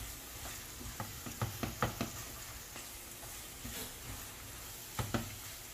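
Ground pork and chopped vegetables sautéing in oil in a pan, sizzling steadily, with a spatula stirring and knocking against the pan a few times, in a cluster after about a second and again near the end.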